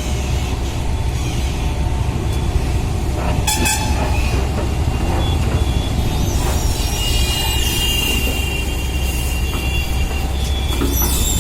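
Heavy machine running with a steady low rumble, a short rattle of metallic clicks about three and a half seconds in, and high metallic squealing in the second half.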